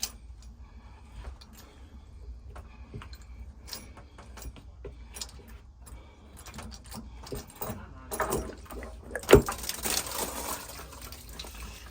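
Small metallic clinks and knocks of tools working the water heater's drain valve, then a sharp knock about nine seconds in followed by a hissing rush of water escaping, as the tank has not been drained.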